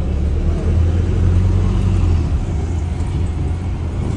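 Wright StreetLite DF bus heard from inside while driving, its engine and cooling fan running: a loud low rumble that swells about half a second in and eases after about two seconds, over steady road noise.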